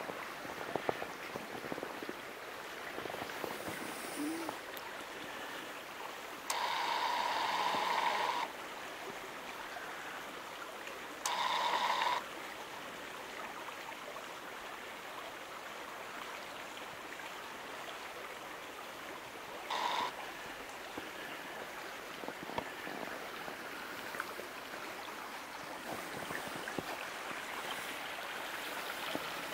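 Small stream flowing over a gravel spawning bed, a steady rushing of water. Three times a louder humming tone cuts in and out abruptly over the water: about six seconds in for some two seconds, again near eleven seconds for about a second, and briefly around twenty seconds.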